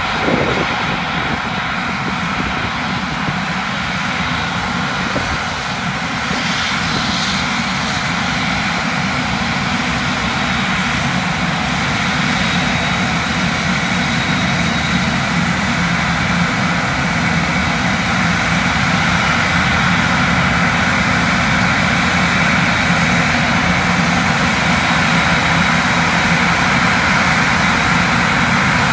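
Large jet airliner's engines running, a steady rush of noise that slowly grows louder.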